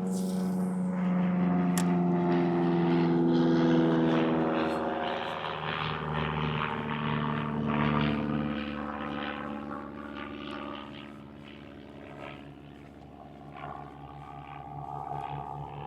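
An engine drone passes by: a steady pitched hum that peaks a few seconds in, then drops in pitch as it goes past and fades.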